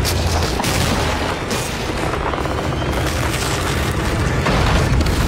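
Film soundtrack: a dense, loud wash of rumbling, booming sound effects mixed with dramatic music, with no dialogue.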